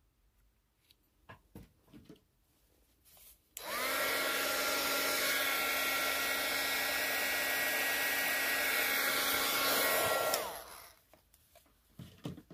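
Heat gun blowing for about seven seconds, used to chase air bubbles out of freshly poured epoxy resin: a steady rush of air over a motor whine that starts abruptly and winds down in pitch as it is switched off.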